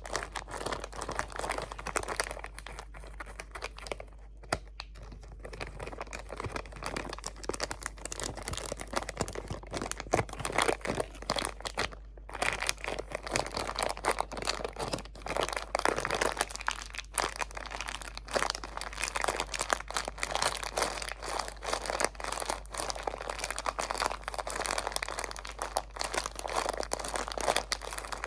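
Close-miked crinkling of materials, a dense run of crackles that softens for a few seconds near the start and pauses briefly partway through.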